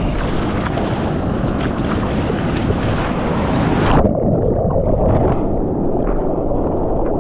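Whitewater rushing and splashing around a GoPro mounted on a bodyboard as it is paddled through broken surf. About four seconds in, the sound suddenly turns muffled and dull as the camera goes under the water, and it stays muffled afterwards.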